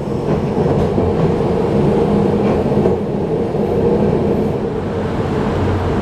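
1928 Peter Witt streetcar, built by Carminati & Toselli, running along its rails, heard from inside the car: a steady hum over wheel-on-rail noise.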